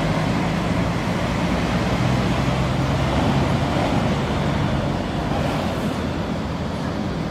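Steady outdoor traffic noise with a low engine hum, which weakens a little about five seconds in, over wind noise on the microphone.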